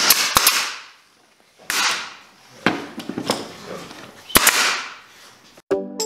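Pneumatic stapler driving staples into plywood: about five sharp shots at irregular intervals, each with a short hiss after it. Music starts near the end.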